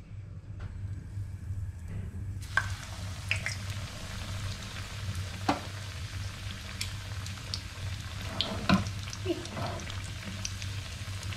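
A breadcrumbed boneless chicken thigh frying in shallow oil in a stainless steel pan. The sizzle starts suddenly about two seconds in, as the chicken goes into the hot oil, and runs on with scattered spits and pops. A few sharp clicks of tongs against the pan are heard, the loudest late on, over a low steady hum.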